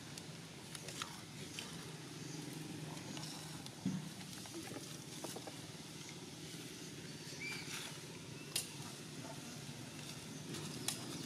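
Young long-tailed macaques clambering in tree branches: scattered light clicks and rustles, and a faint brief squeak past the middle, over a steady low hum.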